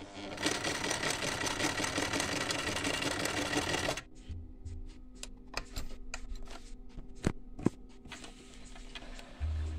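Chaika 144A sewing machine running steadily, stitching a straight seam through six layers of denim, and stopping abruptly after about three and a half seconds. Scattered sharp clicks and taps follow.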